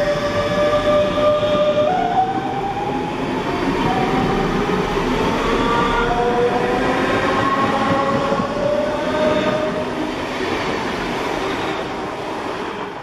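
DB Regio electric multiple unit pulling away from the platform. The whine of its traction motors rises in pitch through several tones as it speeds up, over the rumble of the wheels on the rails, and the sound fades away near the end.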